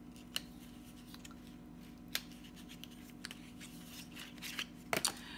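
Small items of cosmetic packaging being handled and opened by hand: faint scratching and rustling with scattered sharp clicks, the loudest a quick cluster of clicks near the end.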